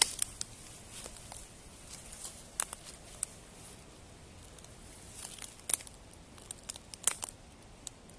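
Footsteps on a forest floor, dry leaves and twigs crackling and snapping underfoot in scattered, irregular steps.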